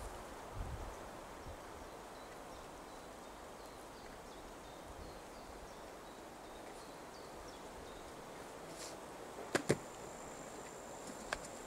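Quiet outdoor background with a few sharp clicks of the wire hoops of a collapsible net trap being handled, two close together about nine and a half seconds in and a single one near the end.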